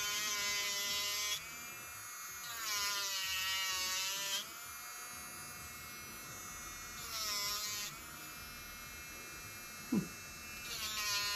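Makartt Stephanee rechargeable nail drill spinning a tornado bit at about 19,000 RPM: a steady high whine that swells into a louder grinding buzz several times as the bit is pressed onto acrylic and cuts it away. Under that pressure the pitch barely drops; the motor is not slowing.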